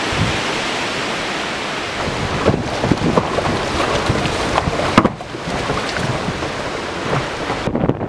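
Strong, gusty storm wind of 30–40 mph buffeting the microphone, over choppy lake waves washing and splashing against a wooden dock. The sound changes abruptly about five seconds in and again near the end.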